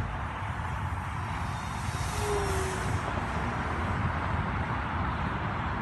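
Wind rumbling on the microphone. About two seconds in, a brief high whine passes, from the small RC foam airplane's brushless electric motor and 8x4 propeller flying by.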